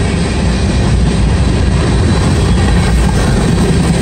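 Freight train's covered hoppers and tank cars rolling past, a loud steady rumble of steel wheels on rail.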